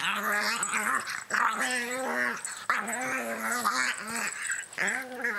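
A dog vocalizing in a run of drawn-out growling, moaning calls with wavering pitch, several in a row with short breaks between them.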